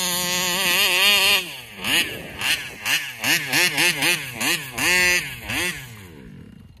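Taylor 35cc reed-valve two-stroke engine in a large RC car, held at full throttle but surging: the revs climb and drop again and again, about two to three times a second, as if the throttle were being let off. The owner suspects a faulty carburetor. The engine sound fades away near the end.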